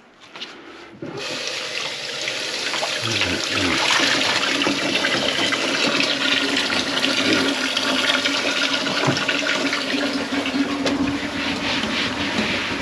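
Water rushing from a faucet into the kitchen sink. It starts about a second in, builds over the next few seconds and then runs steadily.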